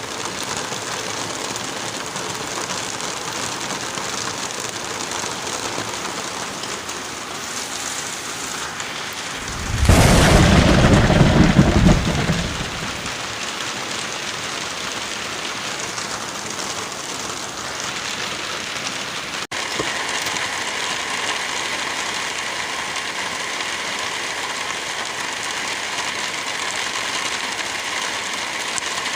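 Steady rain with one clap of thunder about a third of the way in, a loud deep rumble lasting a couple of seconds before fading back under the rain. About two-thirds in the sound drops out for an instant, and the rain carries on with a slightly different, brighter texture.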